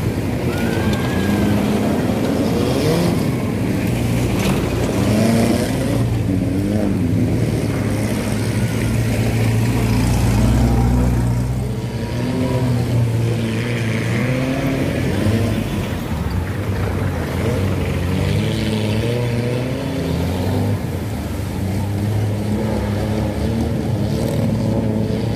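Engines of several vintage open-top jeeps revving up and down one after another while driving through a shallow river crossing, with water splashing around the wheels.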